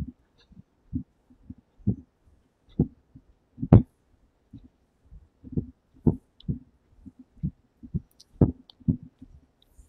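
Footsteps of someone walking at an ordinary pace, heard as dull low thumps about two a second, carried through the body of a handheld phone camera.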